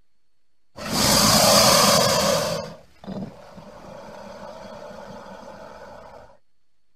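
A crocodile vocalising: a loud, rough, noisy sound lasting about two seconds, starting about a second in, then after a brief gap a quieter, longer sound of about three seconds.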